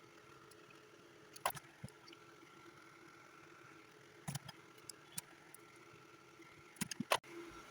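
Scattered small clicks and taps of hand tools and wire being handled at a workbench, loudest in a quick cluster near the end, over a faint steady hum.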